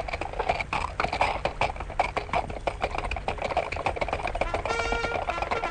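Hoofbeats of several horses moving off together, a dense patter of irregular hoof strikes. Brass and timpani music swells in near the end.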